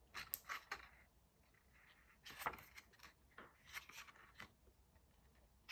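Near silence with a few faint taps and rustles as hands handle the pages of a paper picture book.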